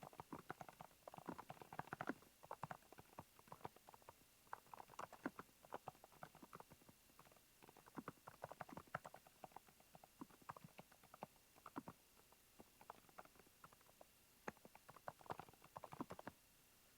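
Typing on a Smurve80 mechanical keyboard: quick runs of sharp keystroke clicks with short pauses between bursts. The typing stops about a second before the end.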